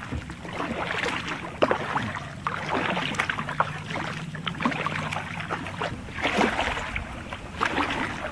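A kayak paddle stroking through calm river water: irregular splashing and dripping as the blades dip and lift.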